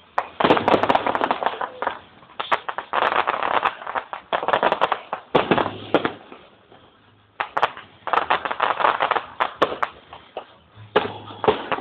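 Aerial fireworks going off in rapid volleys of bangs and crackles, in several clusters with short lulls between them.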